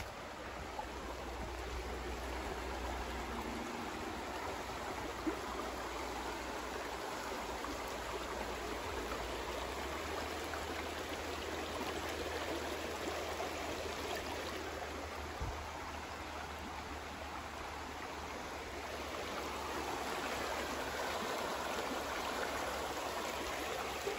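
Shallow creek running over rocks: a steady rush of flowing water, a little louder in the last few seconds. A single brief knock about five seconds in.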